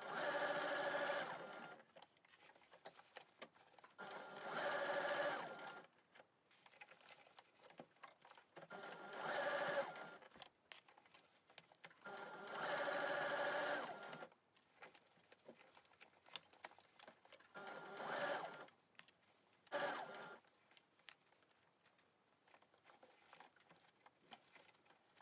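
Electric sewing machine stitching in six short stop-start runs, each a second or two long, its motor whining steadily while it runs. Between the runs there are faint clicks of handling as the fabric is eased around a curved seam and pins are pulled out.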